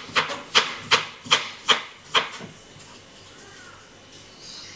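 Kitchen knife chopping through food onto a cutting board, six quick even strokes in the first two seconds, then a pause.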